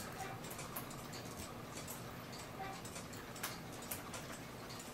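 Light, uneven ticks and clicks from a cuckoo clock movement being worked on, some sharp and some faint, the strongest pair about half a second apart near the end.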